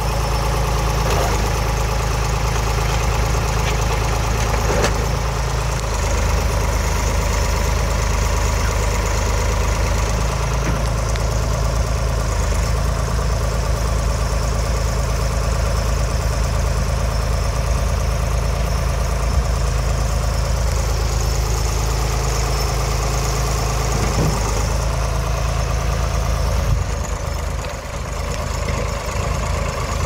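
Mauldin 1500 asphalt paver's diesel engine running steadily.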